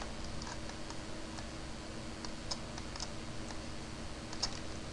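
Light, irregular computer mouse clicks, about a dozen scattered through, over a faint steady hum.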